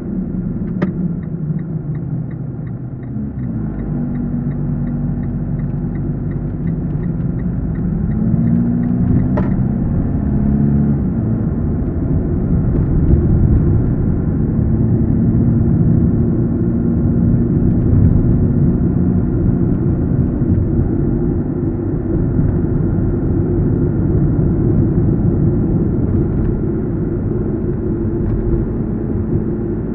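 A car driving, with engine and road rumble. The engine note drops a few seconds in, then rises again as the car picks up speed. A quick regular ticking, about three a second, runs for the first several seconds.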